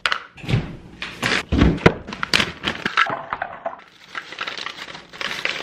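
Frozen fruit pieces and kitchen items clattering and knocking into a plastic blender cup and onto a counter, in irregular sharp knocks. Near the end a steadier rushing starts as liquid is poured in.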